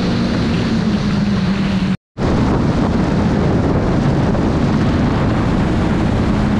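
Jet ski engine running steadily, with wind buffeting the microphone and water rushing. About two seconds in the sound drops out for a moment at an edit, then returns as mostly wind and water rush over the engine.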